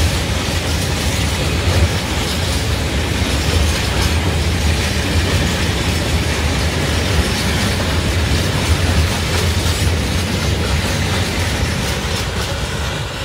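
Freight train of tank wagons rolling past close by, the wheels running over the rails in a steady, loud rumble that eases slightly near the end.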